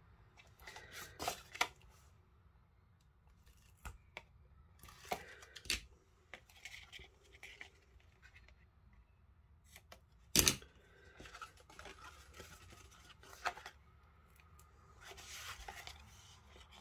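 Double-sided red-liner tape being unrolled and pressed onto card, with paper rustling and scattered crisp clicks; the loudest is a sharp click about ten seconds in.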